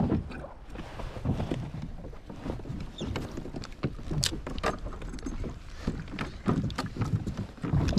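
Small waves lapping and slapping against a kayak's hull, with wind on the microphone and scattered light clicks and knocks throughout.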